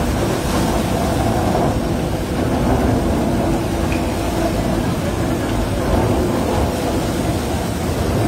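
Tunnel boring machine's cutterhead turning and grinding through the last of the rock face at breakthrough: a steady, heavy rumble with a faint hum over it.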